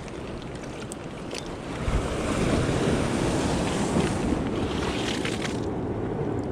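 Sea waves washing against rocks, with wind buffeting the microphone. The wash swells about two seconds in and falls away near the end.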